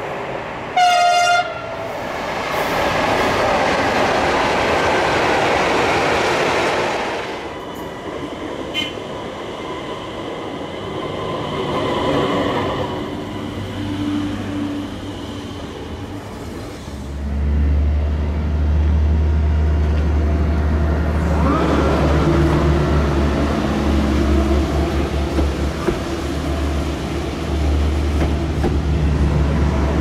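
Swedish train giving one short, loud horn blast about a second in, then running past with wheel and rail noise. About halfway through, a deep, steady locomotive hum sets in, with a brief rising whine a few seconds later.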